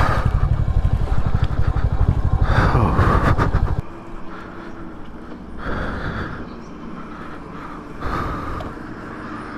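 Royal Enfield Hunter 350's single-cylinder engine running with an even exhaust beat while riding, heard from the saddle; after about four seconds the beat drops away and the engine runs much quieter.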